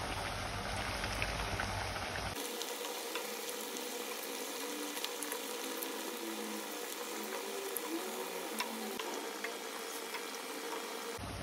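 Kajjaya fritters of rice flour and jaggery deep-frying in a pan of oil over a medium-low flame: a steady sizzle full of fine crackles.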